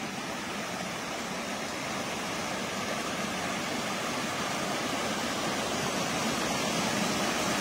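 Shallow water rushing and splashing over a low concrete step in a channel, a steady rush that grows slowly louder.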